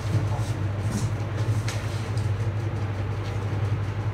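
A steady low hum with a few faint clicks over it.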